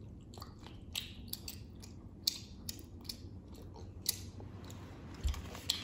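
Small candy wrapper crinkling and children chewing candy: scattered small crisp clicks and crackles at irregular intervals.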